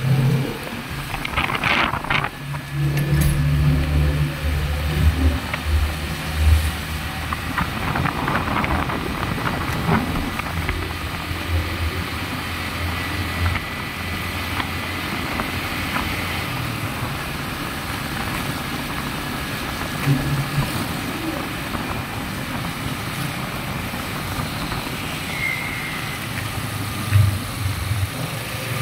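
Yamaha motorcycle engine running under way on a wet road. Its low note rises and falls over the first several seconds, then settles into a steady run over a constant hiss of road and wind noise.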